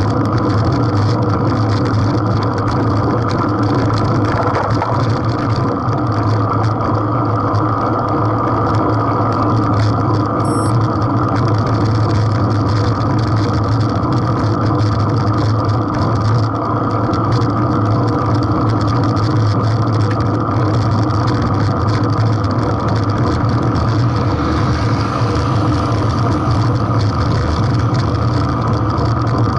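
Motor engine running steadily at an even speed close to the microphone, with a rushing noise over it throughout.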